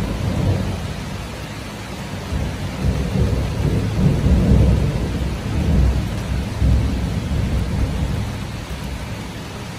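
Thunder rumbling over steady heavy rain. The rumble swells in the middle and fades away near the end while the rain goes on.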